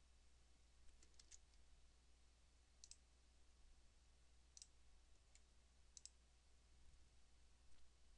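Faint computer mouse clicks, scattered and irregular, several in quick pairs, over a steady low hum.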